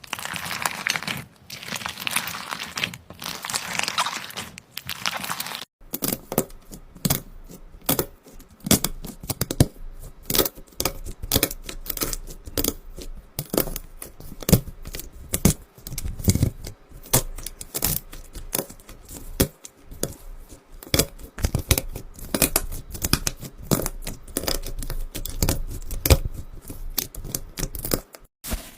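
Slime being squeezed and worked by hand. First a dense crackling, then, from about six seconds in, a long run of sharp, irregular clicks and pops.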